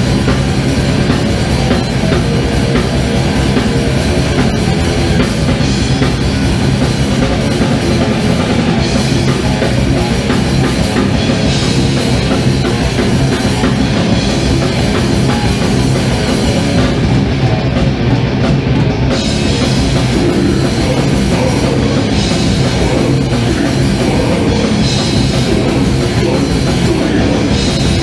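A metal band playing live: distorted electric guitars over dense drum-kit playing, loud and unbroken.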